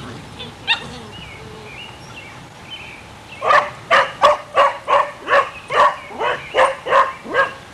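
Puppy barking rapidly and repeatedly, about three barks a second, starting about three and a half seconds in.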